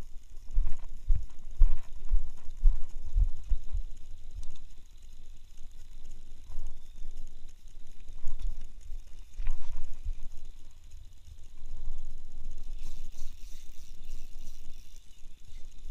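Fishing reel being cranked, its gears clicking and whirring. Dull low bumps from handling the rod and camera, densest in the first few seconds.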